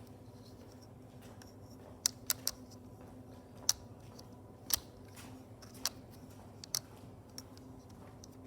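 Plastic dashboard air vent from a Mercedes-Benz Vito W447 being handled, giving about seven sharp, irregular clicks from its louvres and housing over a steady low hum.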